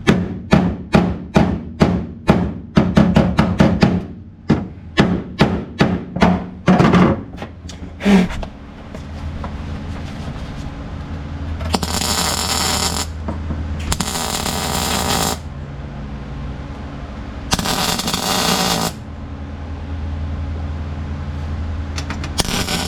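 Hammer striking sheet metal in a quick run of blows for about eight seconds, then a MIG welder crackling in four short bursts of about a second each over a steady low hum.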